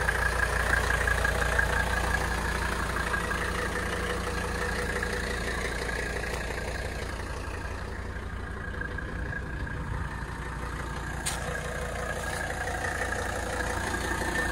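Mercedes-Benz W123 300TD's five-cylinder turbodiesel idling steadily.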